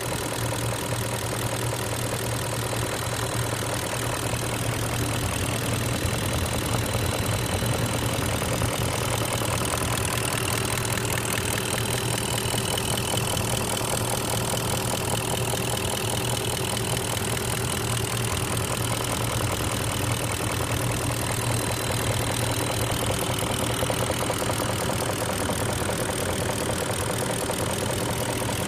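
BMW M62TU 4.4-litre V8 running steadily at idle with a knocking noise. The knock comes on once the engine is warm, and a new revised tensioner has not cured it; the owner suspects the timing chain guides, the VANOS or a vacuum leak.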